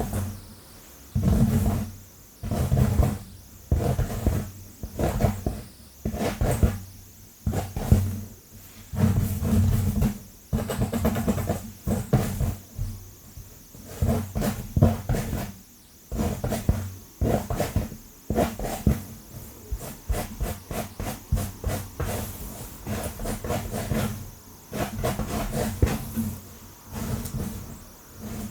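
Long fingernails scratching fast and hard through hair on a scalp, close to the microphone, in short repeated strokes that grow quicker and choppier about halfway through.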